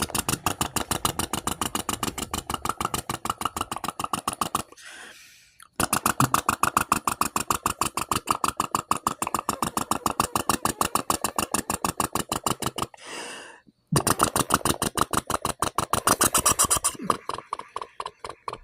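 A person imitating a John Deere two-cylinder tractor engine by mouth: a rapid, even putt-putt, broken twice by a breath and trailing off near the end.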